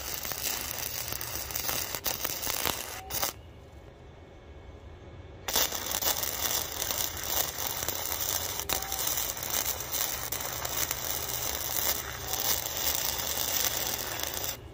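Flux-core wire-feed welding arc from a Harbor Freight welder, crackling and spitting steadily as steel strut channel is welded to a pipe. The arc stops a little after three seconds, pauses for about two seconds, then strikes again for a longer bead that cuts off at the end.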